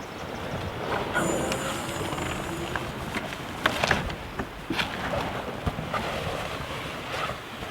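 Wind on the microphone with scattered knocks and clicks of tent poles being handled and fitted together, a cluster of them about four seconds in.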